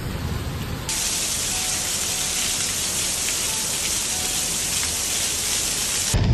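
Heavy rain falling as a steady hiss, beginning abruptly about a second in and ending abruptly near the end, where a deeper rumble takes over.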